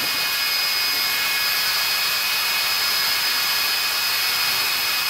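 Hammer drill held in a robot hand, running steadily at high speed with a constant high whine over motor noise.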